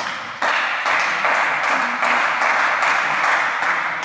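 Spectators applauding the end of a table tennis rally. The clapping starts suddenly about half a second in and keeps on steadily for about three and a half seconds.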